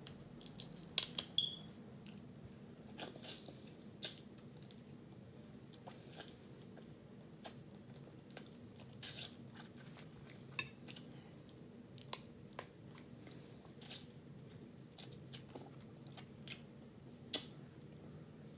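Close-up eating sounds of crab legs: wet chewing and smacking, with sharp irregular clicks and cracks of shell and fork every second or so, over a steady low hum.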